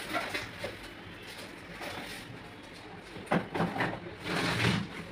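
Faint kitchen handling noise of chopped vegetable pieces being picked off a plate and placed on a pizza base by hand: a few light clicks and then a short rustle near the end, over a steady low background hum.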